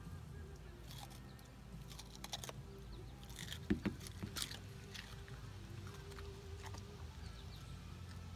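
Scottish terrier chewing a baby cucumber: a run of irregular crunches, loudest about halfway through.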